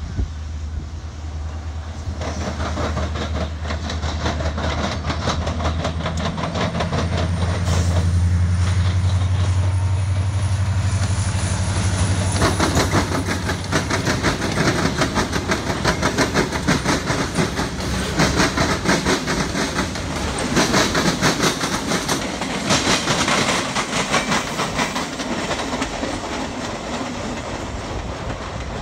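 Freight train passing. Diesel locomotives give a steady low engine drone for about the first twelve seconds, then the freight cars' wheels click over the rail joints in a fast, even clickety-clack.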